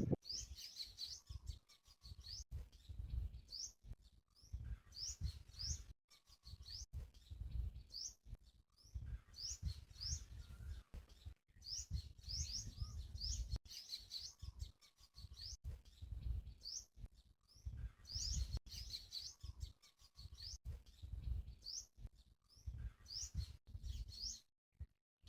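Small birds chirping: short, high, upward-sweeping chirps repeated in clusters, faint, over an uneven low rumble.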